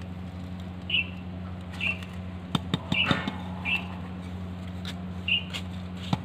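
A bird gives a short high chirp about once a second over a steady low hum. A little past the middle come a few sharp clicks and a brief rustle of gritty potting mix being poured into a clay pot and handled.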